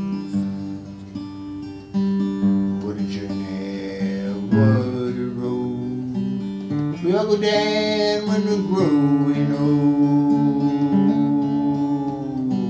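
Acoustic guitar strummed in steady chords, with a man singing along. His voice rises into a long held note in the middle.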